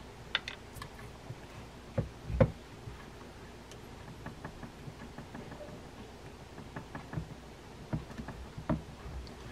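Scattered small clicks and knocks of hands handling a Shimano Tekota 500 fishing reel while threading a plastic cap onto it by hand. The two loudest knocks come close together about two seconds in, with a few lighter clicks near the end.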